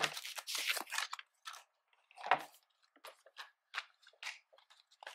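Rustling as a black phone case is drawn out of its foam packing, then a knock a little over two seconds in and a string of small clicks and taps as the plastic case is pressed onto an iPhone 15 Pro Max.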